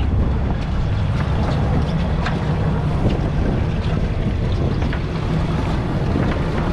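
Fishing boat's engine running with a steady low rumble, wind buffeting the microphone and water washing around the hull, with a few faint clicks over it.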